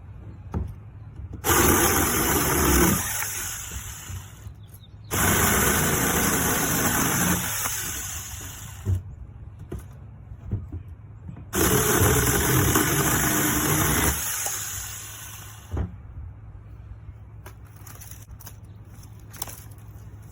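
Seesii 6-inch cordless brushless mini chainsaw run in three bursts of a few seconds each, cutting through wood. Each burst starts suddenly and then tails off.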